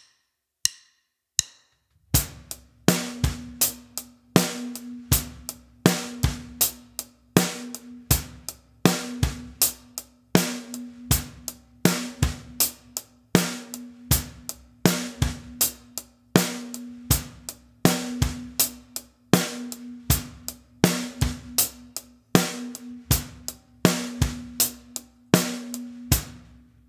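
Acoustic drum kit playing a simple eighth-note beginner groove at 80 BPM: hi-hat on every eighth, snare on 2 and 4, bass drum on 1 and the 'and' of 2. A few light clicks count it in, and the beat stops shortly before the end.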